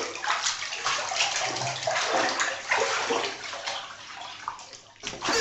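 Water running and splashing in uneven gushes, fading away shortly before the end.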